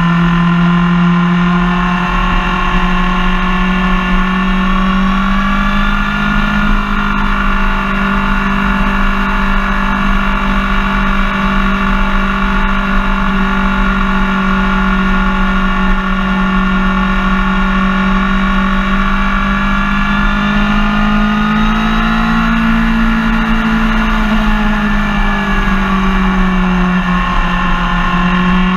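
Suzuki GSX-R sportbike's inline-four engine running under way at a steady cruise. Its pitch steps up a little about six seconds in, climbs again about three quarters of the way through, then eases back.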